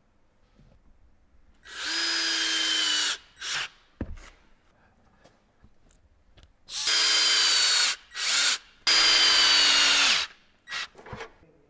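Cordless Metabo drill screwing steel screw studs into a rubber tyre tread. The motor runs in bursts of one to one and a half seconds, once about two seconds in and twice between seven and ten seconds, with short trigger blips between them. Its whine sags slightly in pitch during each run.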